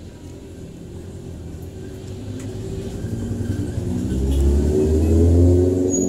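A motor vehicle's engine running and growing louder as it approaches, loudest near the end before it starts to fade.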